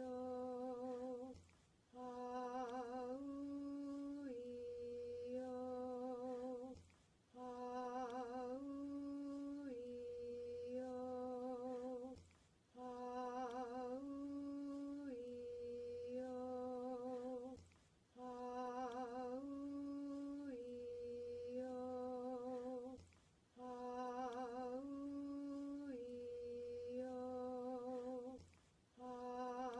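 One voice slowly chanting the vowels "Ah-oo-ee-oh" as a repeated phrase of held notes, each vowel lasting about a second, some notes with vibrato. The phrase comes round about every five seconds, with a short pause between repeats.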